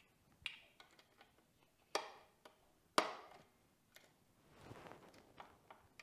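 Several light clicks and taps of needle-nose pliers and a cotter pin being worked into the brake pedal's pivot pin, the sharpest click about three seconds in, with a soft scuffle near the end.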